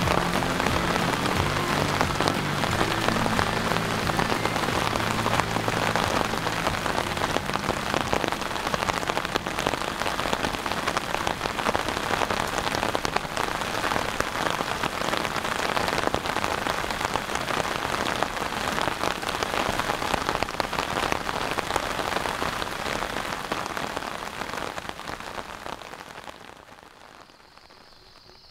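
Steady heavy rain pattering on a surface, a dense hiss of many drops that fades away over the last few seconds.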